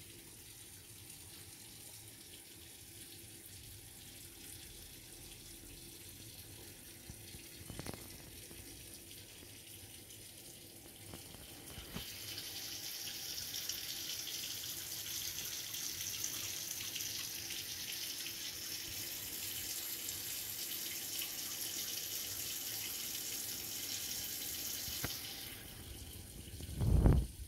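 Steady hiss of running water, faint at first, louder from about halfway through and stopping shortly before the end. A loud low thump comes near the end.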